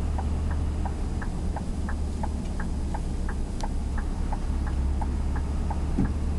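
Turn-signal indicator ticking evenly about three times a second over the steady low drone of a Scania R500's V8 diesel engine, heard inside the truck cab.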